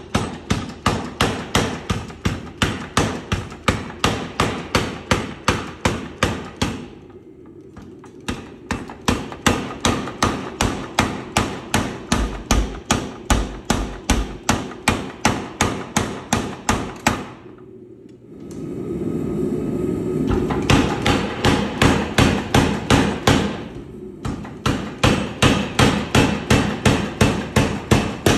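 Homemade 100 lb leaf-spring power hammer striking a hot steel bar in fast, even runs of blows, about four a second, stopping briefly twice. From about two-thirds of the way in, a steady running noise sits under the blows.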